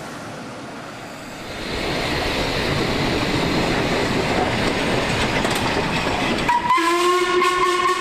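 Steam locomotive letting off steam, a loud hiss that swells up about a second and a half in. Near the end it gives way to a steady, sustained whistle blast.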